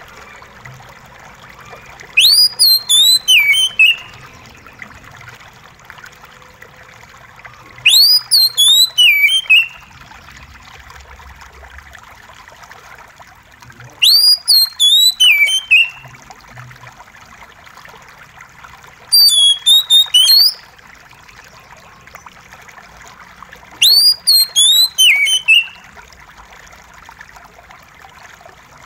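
Oriental magpie-robin singing short whistled phrases about every five or six seconds. Each phrase is a rising and falling sweep followed by a quick run of notes. Beneath it runs a steady trickle of water.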